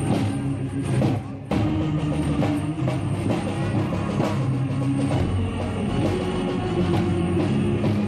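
Music with a heavy drum beat over sustained, deep instrumental tones. It drops out for a moment about one and a half seconds in, then carries on.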